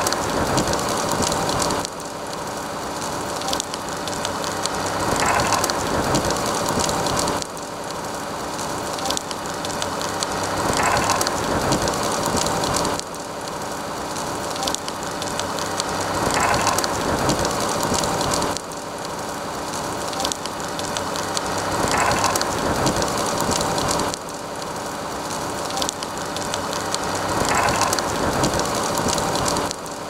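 Crackling and hissing of burning brush: a dense patter of small pops over a steady hiss. The same stretch repeats about every five and a half seconds, each time dropping suddenly in level and building up again.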